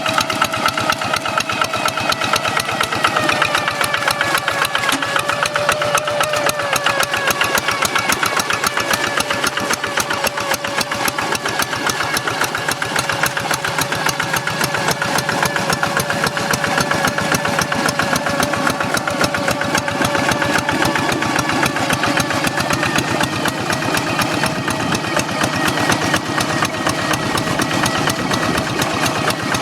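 Blue Kubota single-cylinder diesel engine of a hand tractor running steadily, a rapid engine beat with a whine, the 'ngiung ngiung', riding over it. The pitch drops slightly a few seconds in and then holds steady.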